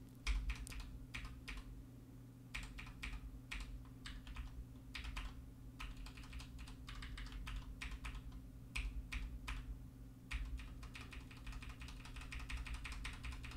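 Computer keyboard keys tapped irregularly, about two a second, speeding up into a quick run of taps near the end, over a faint low steady hum.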